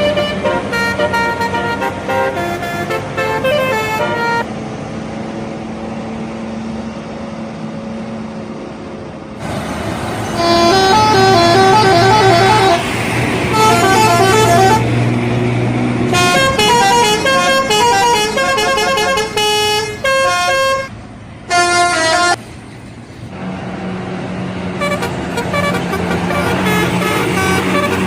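Indonesian bus telolet horns playing quick multi-note tunes in several runs, loudest through the middle, with bus engine and traffic noise between the runs.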